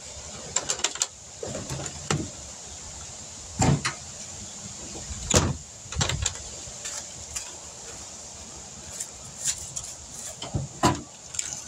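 Scattered knocks and clicks, with a few louder thumps, from someone moving about and handling the pickup truck's front end; the last thump comes as he reaches the grille, where the hood latch is.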